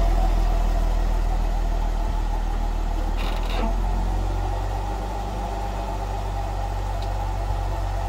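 2015 Jeep Wrangler JK running, heard from beneath the rear axle: a steady low drone with a short scraping noise about three seconds in. It is the groaning that came with shifting, mainly into reverse, which replacing the brakes and rotors cured.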